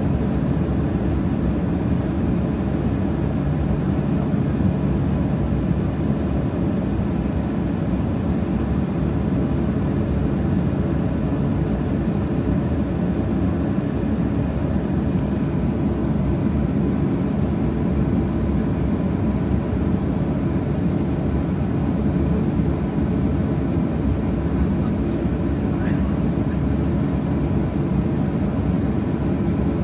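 Steady cabin drone of a Boeing 737-800 holding on the runway with its CFM56 engines at idle, heard from inside the passenger cabin, with a faint steady high tone over it.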